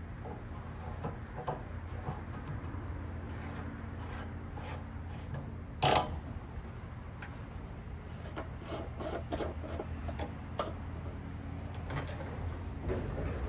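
Rubbing and scraping handling noises with scattered clicks and one sharp knock about six seconds in, over a steady low hum.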